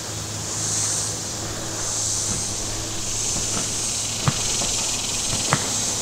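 Chorus of cicadas buzzing, swelling and fading over and over, over the low steady hum of a motorboat engine on the lake. Two short sharp knocks come near the end.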